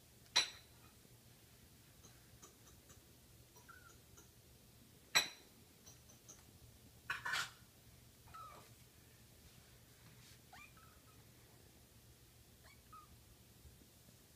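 A kitten's tiny, high squeaky meows, short and scattered, with a louder cluster about seven seconds in. Two sharp knocks land about half a second and five seconds in.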